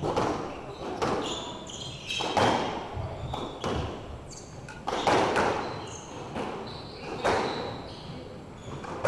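Squash rally: the ball struck by racquets and smacking off the walls in sharp hits about every half second to a second, each echoing around the enclosed court, with short squeaks of shoes on the hardwood floor between hits.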